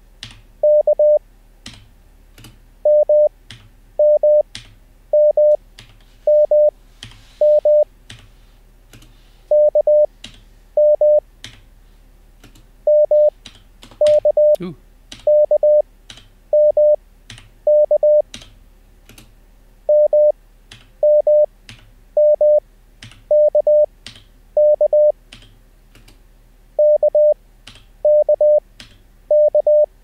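Morse code (CW) practice tone at about 600 Hz sending only the letters K and M, each keyed quickly at 20 wpm but spaced far apart (5 wpm effective, Farnsworth timing), roughly one character a second. After nearly every character come computer keyboard keystrokes as each letter is typed in copy.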